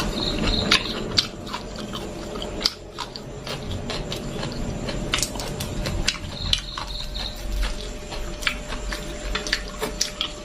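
Someone chewing crispy fried chicken on the bone close to the microphone, with irregular sharp crunches.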